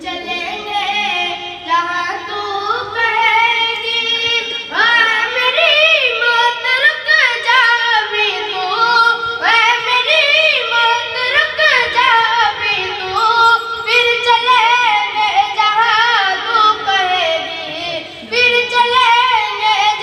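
A child's high voice singing a naat, an Urdu devotional poem in praise of the Prophet, with no accompaniment. It goes in long melodic phrases, each opening with a rising glide and ornamented with wavering turns.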